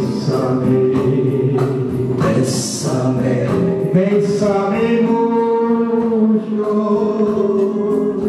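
A man singing karaoke into a handheld microphone over a recorded backing track with a steady beat, holding long notes in the second half.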